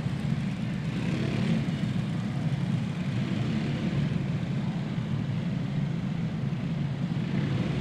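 A field of racing go-karts with single-cylinder Predator small engines, running together at a slow caution pace as a steady, dense engine drone.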